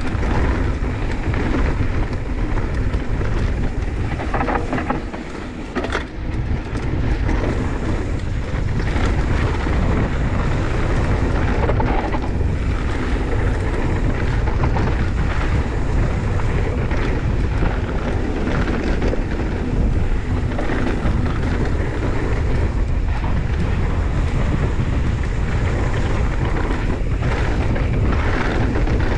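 Wind buffeting the camera microphone of a mountain bike descending at about 32–34 km/h, over the crunch and crackle of tyres rolling on a loose, dry dirt-and-stone trail, with small rattles and clicks from the bike. The wind dips briefly around five seconds in, followed by a sharp click.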